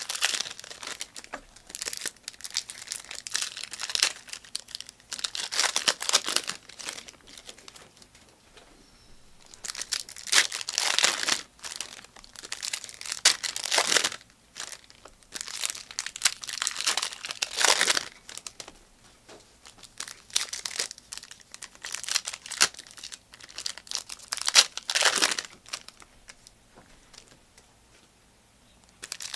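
Plastic trading-card pack wrappers crinkling and tearing as packs are ripped open and handled by hand, in irregular bursts with short pauses, quieter near the end.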